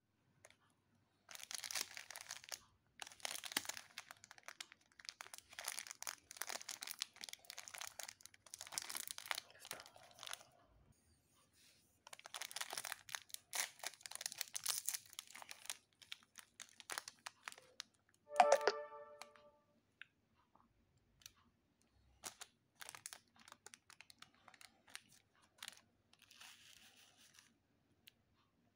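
Foil-lined plastic sachet of soft drink powder crinkling in the hands and being torn open, in repeated rustling bursts. A brief pitched squeak about two-thirds of the way in is the loudest sound. Near the end comes a softer rustle as the powder is poured out into a palm.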